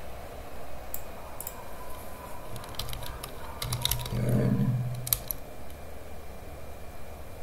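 Computer keyboard keystrokes, scattered clicks typed in short runs. About four seconds in, a short low hum lasting about a second stands out as the loudest sound.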